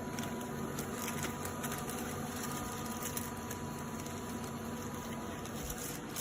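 Steady room hum with a thin high tone and a few faint scattered clicks and taps.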